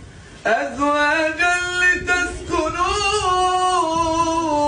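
A man's voice in melodic Qur'an recitation, drawing out long, wavering, high notes. It starts after a short breath pause at the very start.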